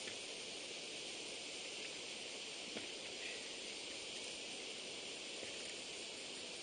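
Steady hiss of outdoor background noise with no clear event in it, and a faint click or two near the middle.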